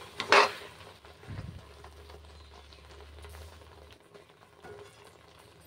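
Metal spoon stirring thick, oily jujube pickle in a wok, with one loud scrape against the pan about a third of a second in, then quieter stirring.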